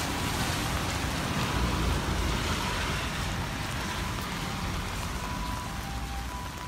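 Steady hiss of falling rain with a low rumble underneath. Faint electronic tones start sounding near the end.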